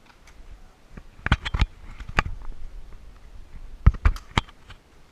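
A series of sharp knocks or clicks, about seven in all, in two main clusters, over a low rumble.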